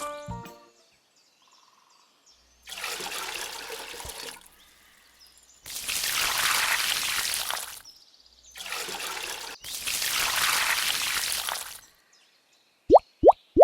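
Water pouring in four separate spells, the first one softer, with short pauses between. Near the end a quick run of rising 'bloop' sound effects starts, about two a second.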